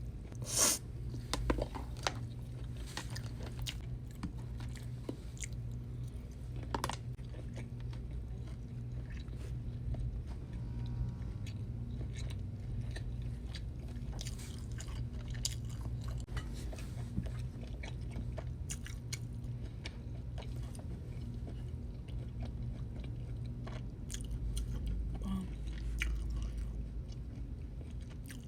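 Close-miked chewing of steak, with short crunchy bites and mouth clicks scattered throughout, the sharpest just after the start, over a steady low hum.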